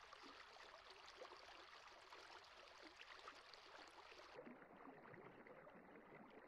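Very faint river water in the shallows, a low hiss with a few small splashes. About four seconds in, the treble drops away and the water sound turns duller.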